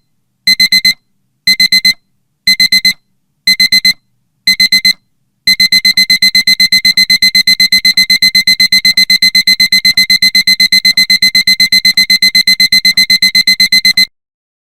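Digital alarm clock beeping, signalling the end of the countdown. It sounds in quick groups of four beeps about once a second, then about five seconds in changes to a continuous rapid beeping of about eight beeps a second, which stops suddenly near the end.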